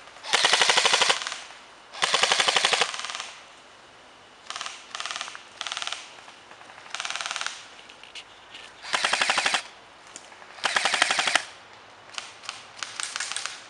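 Airsoft M4-style rifle firing rapid full-auto bursts, five loud bursts of about a second each, with shorter, quieter bursts in between.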